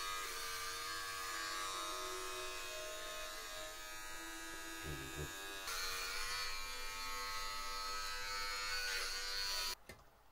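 Electric hair clippers running with a steady buzzing hum, stopping abruptly near the end.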